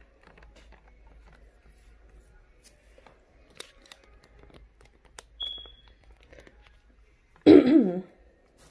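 Wooden craft stick stirring fast-curing resin in a clear plastic cup: faint scrapes and light taps against the cup's sides and bottom, with a brief high squeak about five seconds in. Near the end a short, loud voice-like sound cuts in.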